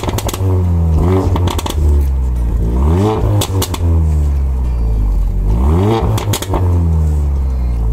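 Mercedes CLA AMG engine and quad-tip exhaust revved in blips while stationary, pitch rising about a second, three and six seconds in and falling away each time. Sharp crackling pops from the exhaust as the revs drop.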